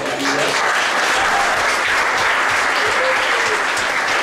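Congregation applauding, many hands clapping steadily together.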